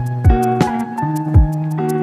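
Background music with a steady beat: quick high ticks, a deep kick drum and held notes.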